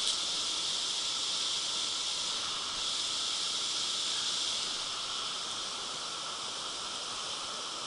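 Steady hiss of a shallow river running over a small weir, a little softer after about five seconds.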